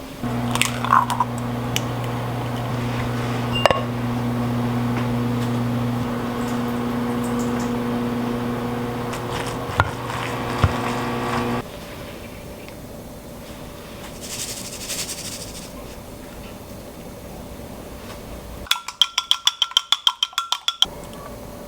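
Microwave oven running with a steady electrical hum, with a few light clinks of dishes, until it stops about twelve seconds in. Near the end comes a rapid string of about a dozen electronic beeps.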